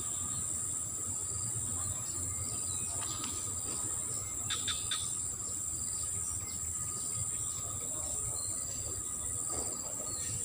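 Insects trilling steadily at a high pitch, the chorus pulsing in a regular beat, with a short chirp about halfway through.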